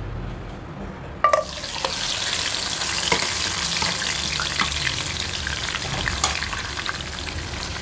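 Marinated mutton pieces tipped into hot oil in a nonstick wok: a sudden clatter and hiss about a second in, then steady sizzling with scattered crackles as the meat fries.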